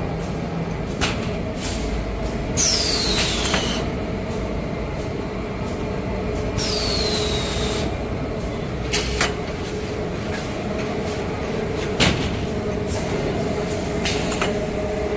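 Small kitchen-towel production line running: a steady machine hum with a held tone, scattered metallic knocks, and twice a hiss of about a second with a falling whistle in it.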